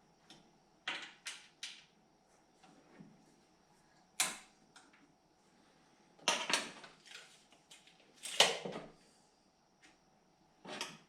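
Wooden boards and tools being handled: a run of irregular knocks and clatters, the loudest about eight seconds in. No saw is running.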